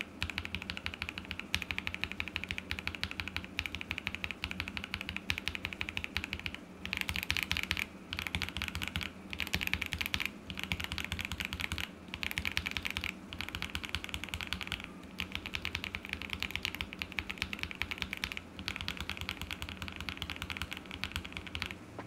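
KTT Red Wine linear mechanical keyboard switches, stock and lubed, in a KBD67 Lite R2 with a polycarbonate plate, being pressed rapidly over and over: fast clacking keystrokes in runs of about a second with brief pauses between them.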